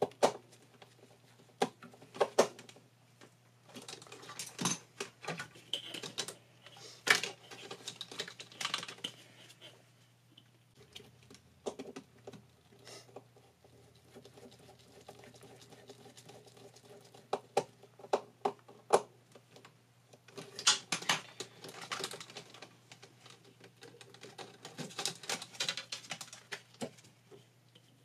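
Small clicks, taps and rustles of hands doing electrical wiring: a small screwdriver working terminal screws and insulated wires being handled and routed in nitrile-gloved hands, in irregular clusters. A faint low steady hum runs underneath.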